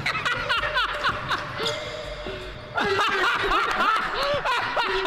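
A basketball bouncing and sneakers squeaking on a gym floor in short chirps, getting louder about three seconds in, with some laughter.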